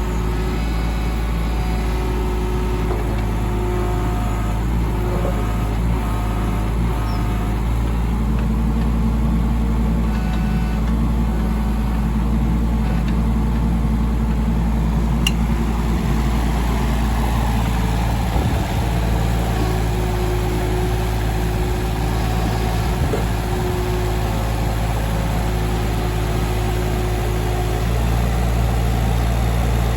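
Case CX18B mini excavator's diesel engine running steadily, with an extra higher hum joining for several seconds in the middle.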